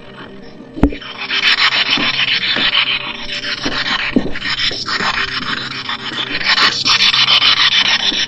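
Footsteps crunching through brush and dry leaves at a walking pace, with a steady scraping rub of branches or clothing against the microphone.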